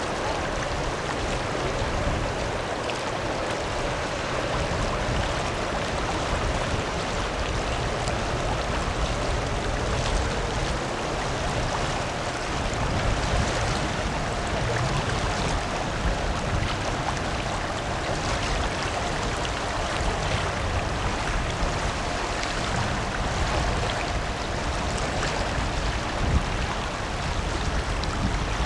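Steady rushing of river water and wind, with a low rumble underneath and a faint steady tone entering about halfway through.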